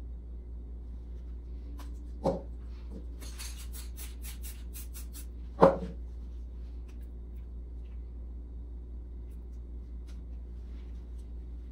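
Aerosol can being handled and shaken: a knock about two seconds in, then its mixing ball rattling about seven times a second for two seconds, and a louder knock just after. A steady low hum lies under it all.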